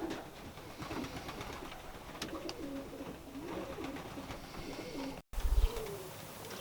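Racing pigeons cooing in the loft: repeated low, wavering coos. About five seconds in, the sound drops out for a moment and is followed by a brief low thump.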